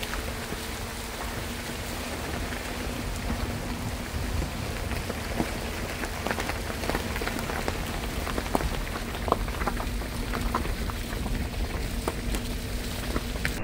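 Steady rain falling on forest leaves, an even patter with many sharp individual drop ticks, over a low rumble.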